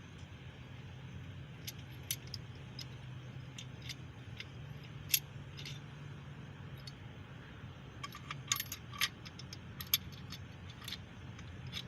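Scattered light metal clinks and taps as the main bearing cap bolts on a small block Chevy 350 are loosened and unscrewed, with a quick cluster of clinks about two-thirds of the way through, over a steady low hum.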